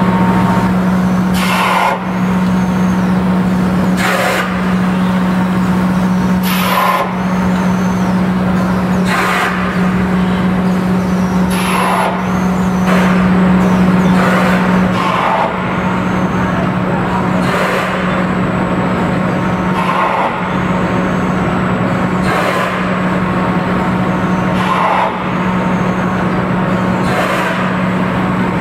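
Egg tray pulp moulding machine running: a steady low motor hum with a short hiss of air about every two and a half seconds.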